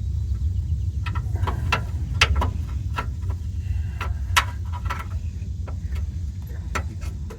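Metal bolt and pickup magnet clicking and tapping against the steering idler arm mount, a quick irregular run of small metallic knocks as the bolt is worked into its hole, over a steady low rumble.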